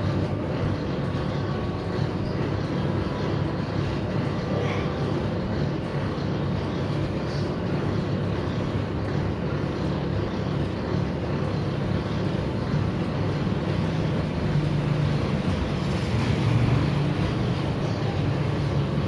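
Motor-driven noodle-making machine running with a steady mechanical hum.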